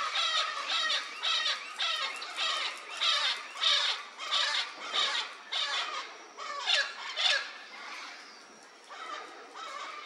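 Vinaceous-breasted Amazon (Amazona vinacea) calling: a run of harsh, squawking calls about two a second. About seven seconds in come two louder calls that slide down in pitch. After a quieter spell, weaker calls return near the end.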